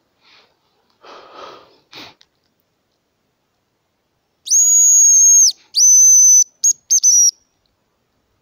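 Homemade brass-tube hazel grouse decoy whistle blown in the hazel grouse's call pattern: two long, very high whistled notes, then three short quick ones, about halfway through. A brief rustle comes first.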